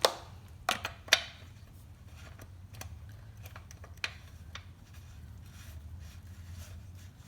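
Sharp metallic clicks and clacks from handling small engine parts and tools: three loud ones in the first second or so, then a few fainter ones. A low steady hum runs underneath.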